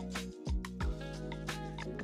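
Electronic dance music with a kick drum, sustained bass notes and quick hi-hat ticks.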